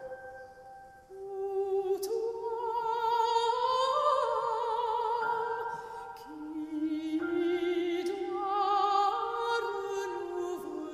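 Slow music: a melody of long held notes with vibrato that steps up and down in pitch, over lower sustained notes.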